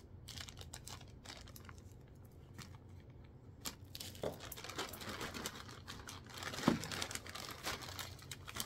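Packaging crinkling, with small clicks and taps, as grooming clipper blades are unwrapped and handled; one louder tap comes about two-thirds of the way through.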